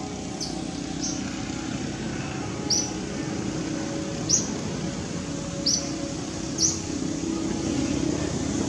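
A small bird chirps six times in short, sharp, high notes, spaced irregularly, over a steady low outdoor rumble.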